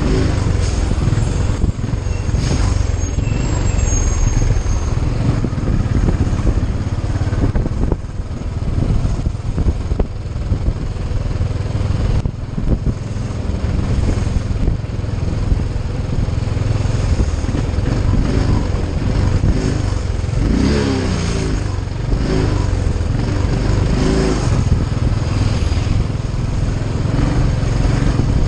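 Motorcycle running at road speed in traffic, its engine drone mixed with heavy wind rumble on the microphone. A little past the middle the engine note wavers up and down.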